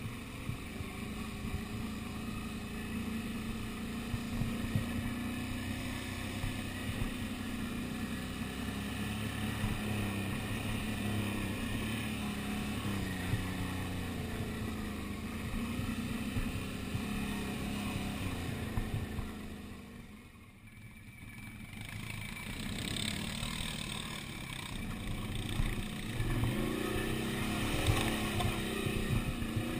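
Quad bike (ATV) engine running while riding a dirt trail, its pitch rising and falling with the throttle. About two-thirds of the way through it drops away briefly, then picks up again and gets louder near the end.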